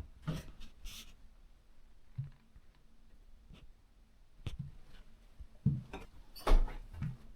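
Sporadic light knocks and clicks in a small room, with a few louder thumps in the last couple of seconds.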